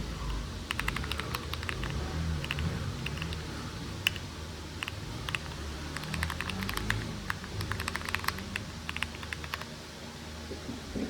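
Typing on a mechanical keyboard with HMX Hyacinth switches and Akko clear polycarbonate ASA-profile keycaps: quick runs of key clacks broken by short pauses, stopping shortly before the end.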